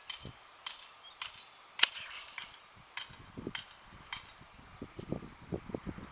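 Hunting dogs giving short, sharp yelps and barks at irregular intervals, one much louder about two seconds in. Low thuds of footsteps through the grass come in the second half.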